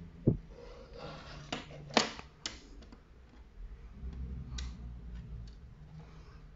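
Hands working a small screwdriver and the plastic ring light frame: about half a dozen sharp clicks and light knocks at uneven intervals, the loudest about two seconds in.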